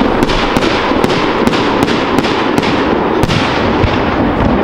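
Aerial firework shells bursting in quick succession: sharp bangs about two or three a second.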